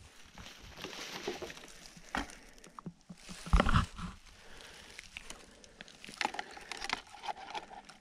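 Footsteps and rustling brush as someone walks through woods, with scattered twig snaps and one loud thump about three and a half seconds in.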